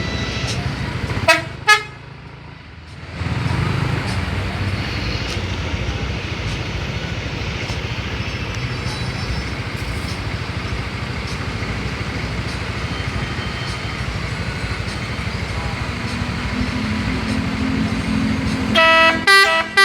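Indonesian coach's "telolet" multi-tone musical horn giving two short toots about a second in. A long stretch of loud vehicle engine and road noise follows. Near the end the horn plays a quick run of notes that step in pitch.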